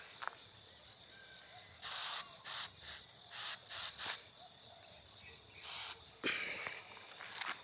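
Handheld pump pressure sprayer spraying in short hissing squirts: a quick series of about six bursts starting about two seconds in, then one more a little before six seconds. A rustle follows near the end.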